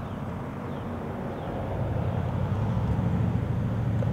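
A motor vehicle's engine running close by, a steady low hum that grows louder about halfway through.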